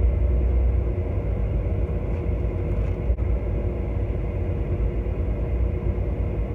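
Car engine idling: a steady low rumble with a faint hum.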